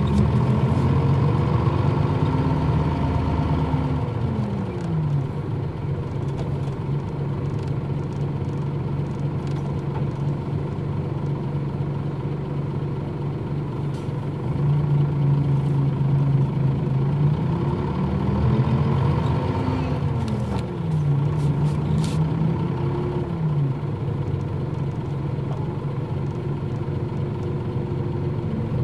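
Nissan Diesel KL-UA452MAN city bus running, its diesel engine steady most of the time. Near the start and again about eighteen seconds in, the engine pitch climbs and then drops, as the bus pulls away through the gears.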